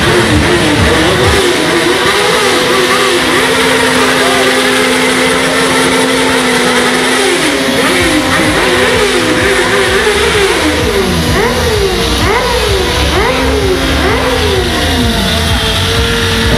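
Motorcycle engine revved hard during a smoky burnout, its rear tyre spinning. The engine is held at a steady high note at first, then about halfway through it is blipped up and down over and over, the pitch rising and falling about once a second.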